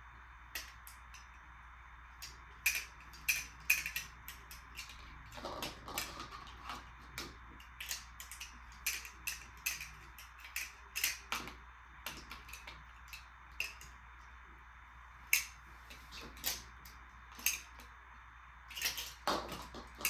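Glass marbles clattering and clicking down a plastic marble run: many sharp, irregular clicks and clacks as marbles hit the track pieces and each other, over a steady low hum.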